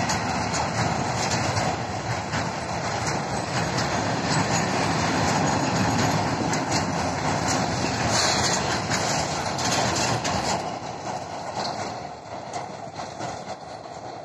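A freight train of railway tank wagons rolling past: a steady rumble of wheels on rails with frequent short knocks. It fades after about ten seconds as the last wagons pass and draw away.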